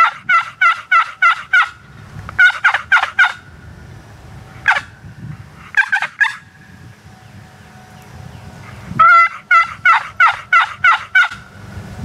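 Turkey yelping: loud runs of evenly spaced, raspy notes, about four a second. There is a long run at the start, shorter runs and single notes through the middle, and another long run from about 9 to 11 seconds in. Low wind rumble underneath.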